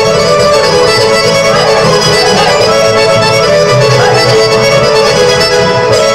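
Traditional Serbian folk dance music from the Timok region, played on accordion with violin.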